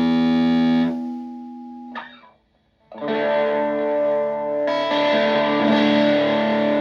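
Stratocaster played through a Tone Bender MKII fuzz pedal into an Ampeg VT22 valve amp. A held fuzz chord is cut off about a second in, a brief pick scrape follows, then after a short gap new thick, sustaining fuzz chords ring out and change about two seconds later.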